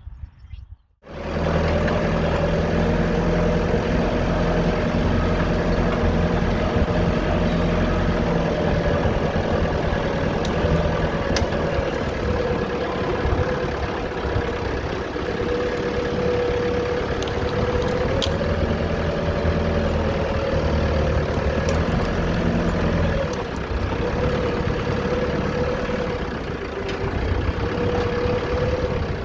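Tractor engine running steadily, its pitch wavering slightly; the low rumble eases off somewhat around three quarters of the way through.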